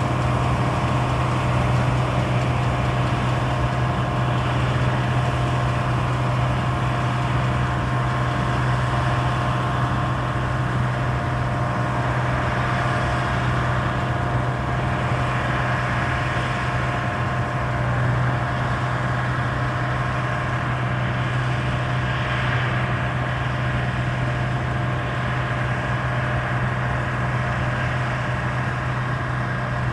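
Deutz-Fahr combine harvester running steadily while harvesting oilseed rape: a constant low engine drone with steady machinery whines over a wash of noise, easing off slightly as it moves away.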